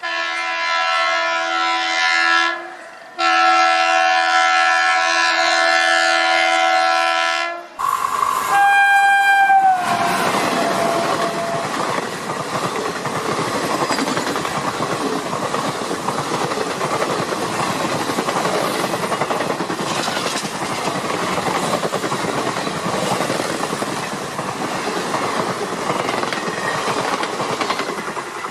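Train horn sounding a chord of several tones in two long blasts with a short break between them, then a shorter, lower note that drops in pitch. After that comes the steady rumble and clatter of a train running on the rails.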